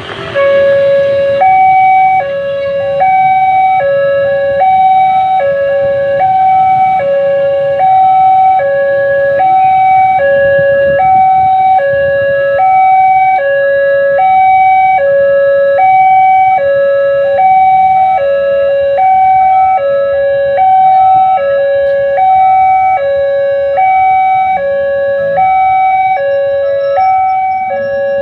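Electronic two-tone warning siren of a railway level crossing, switching on suddenly and then steadily alternating between a lower and a higher tone, about one full hi-lo cycle every second and a half. It is the crossing's alarm that a train is approaching.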